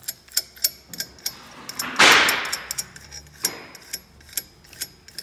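Repeated sharp metal clicks and clinks from hand-working steel hardware: a clamp bar, nut and threaded rod on a hydraulic hammer accumulator. About two seconds in comes a much louder burst of noise that fades over about a second.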